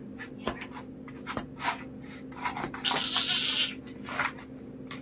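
Forks cutting into a frozen chocolate cream pie on a plate: scattered short clicks and scrapes, with a longer scratchy scrape about three seconds in, over a faint steady hum.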